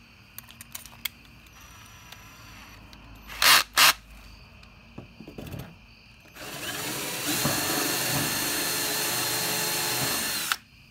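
Ryobi cordless drill running a step drill bit into the car's fender, cutting a hole to size for a rivnut. It starts about six seconds in, runs steadily for about four seconds and cuts off suddenly near the end. Two short sharp bursts come earlier, about three and a half seconds in.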